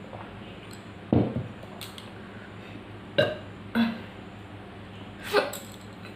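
A woman burping and hiccuping from a stomach full of spicy noodles and fizzy cold drink: four short, loud bursts, one to two seconds apart, the first the loudest and longest.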